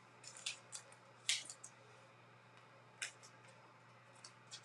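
Faint, brief scrapes and flicks of paper baseball trading cards being handled and slid on a wooden table, a few separate strokes with the clearest one about a second in.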